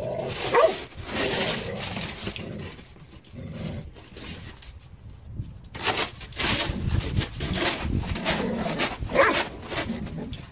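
Snow shovel scraping and scooping through snow in bursts near the start and again through the last few seconds, with a quieter stretch between. A dog makes a few short whines or grunts.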